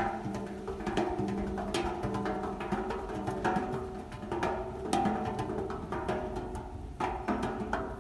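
Percussive music: quick, dense strikes, several a second, over held pitched notes.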